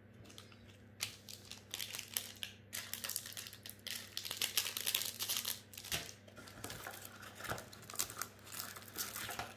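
A Magic: The Gathering booster pack's foil wrapper crinkling as it is handled, in many quick bursts starting about a second in.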